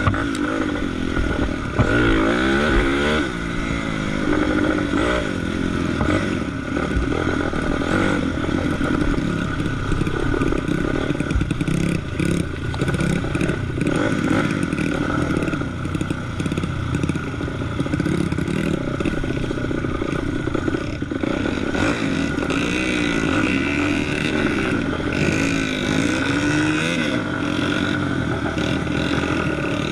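Kawasaki KX250 dirt bike engine pulling through mud, the revs rising and falling again and again, with some clattering from the bike.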